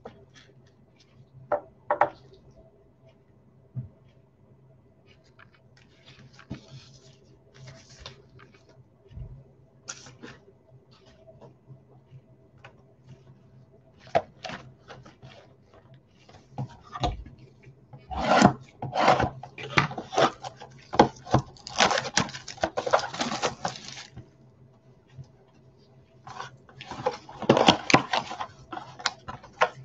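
Gloved hands handling and opening a sealed trading-card box: cardboard rubbing and wrapper crackling. Scattered faint clicks at first, then dense crackling and rubbing for several seconds past the middle and again near the end.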